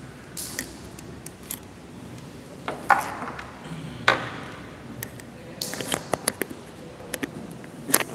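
Microphone handling noise: clicks, knocks and rubbing as a small microphone and its cable are handled and fitted, with sharp knocks about three seconds in, about four seconds in and near the end.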